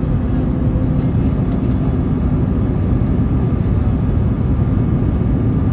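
Airbus A321neo jet airliner on approach, its engines making a steady low rumble with a faint whine, heavily mixed with wind buffeting the microphone.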